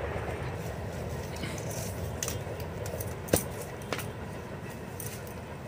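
A kodal (hoe-like spade) digging taro corms out of the soil: a few scrapes and sharp knocks, the loudest a little past halfway, with a second knock just after it. A steady low rumble runs underneath.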